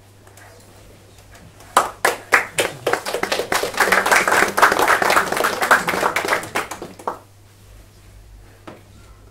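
Small audience applauding: a few scattered claps about two seconds in, swelling into steady clapping that dies away about seven seconds in.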